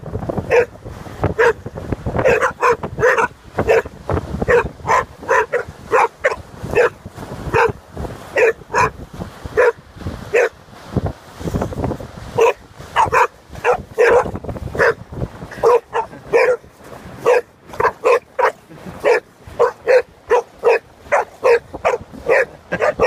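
Boxer dogs barking in short, loud, repeated barks, about two a second, with a few brief pauses.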